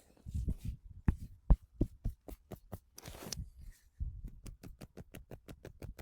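Hands striking the body in a percussive massage: a few separate slaps in the first two seconds, then a quick, even run of tapping strokes, about five a second, from about four seconds in.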